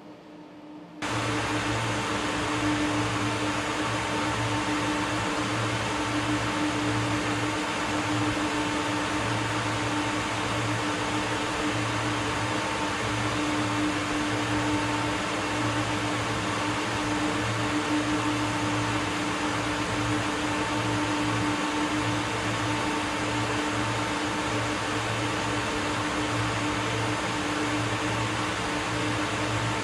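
Steady mechanical hum of industrial machinery, a constant drone with several fixed tones over a whooshing noise, cutting in suddenly about a second in.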